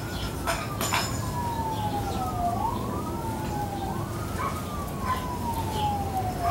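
An emergency vehicle siren wailing, its pitch rising quickly and falling slowly about every two seconds, with a few sharp clicks about half a second and a second in.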